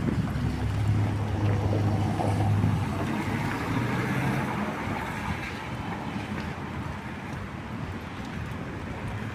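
Wet street ambience with a steady wash of noise and a motor vehicle's low engine hum, loudest in the first three seconds, then a lighter hum near four seconds.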